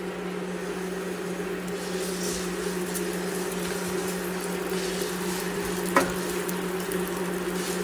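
Lisan al-asfour pasta frying in ghee in a nonstick pan, stirred with a spatula: a faint sizzle and scraping over a steady low hum, with one sharp tap of the spatula on the pan about six seconds in.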